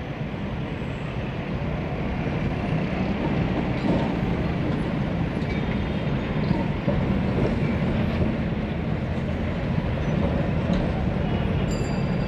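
Electric street tram running on its tracks: a steady low rumble of wheels and motors.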